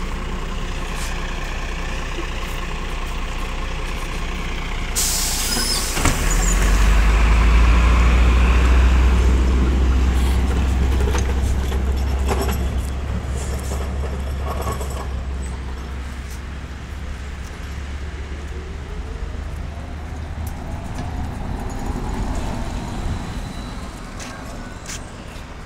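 MAZ 105 articulated city bus releasing its air brakes with a sharp hiss about five seconds in, then its diesel engine pulling away from the stop with a deep low rumble that fades as the bus leaves.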